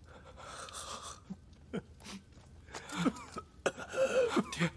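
A man's hoarse coughs and groaning breaths, louder near the end.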